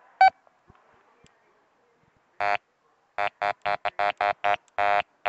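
Metal detector giving its target tone as the search coil passes over dug soil: one short beep, then after a pause a run of short buzzy beeps, about four a second, the last ones longer. It is pinpointing a very small buried ferrous target.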